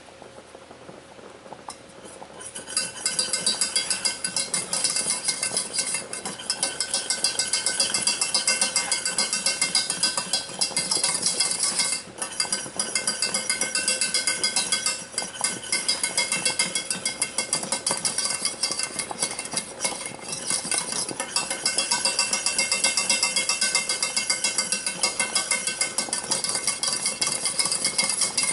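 Metal spoon stirring boiling cornstarch pudding in a stainless steel saucepan, clinking and scraping against the pot several times a second with only brief pauses. The stirring starts about two seconds in and is kept up non-stop so the thickening pudding does not stick.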